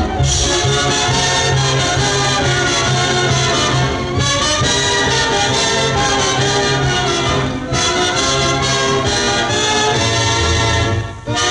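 Loud orchestral music with brass, with brief breaks between phrases about four and eight seconds in and again near the end.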